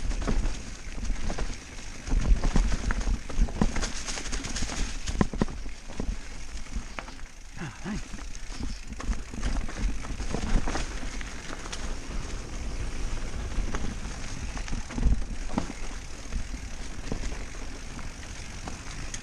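Mountain bike riding fast down a dirt singletrack: continuous tyre and trail noise with frequent knocks and rattles over bumps, and wind rumbling on the microphone.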